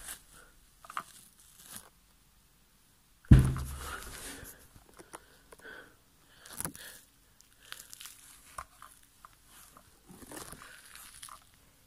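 Rustling and handling noise with scattered small knocks, and one heavy thump a little over three seconds in.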